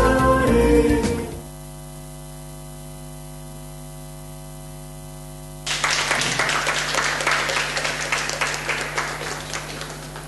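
Choral music ends about a second in, leaving a steady electrical mains hum. About halfway through, applause breaks out suddenly and thins out towards the end.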